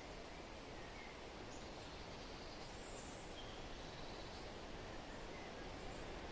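Steady, soft wind noise, an even rush with no gusts, with a few faint, short bird chirps scattered through it.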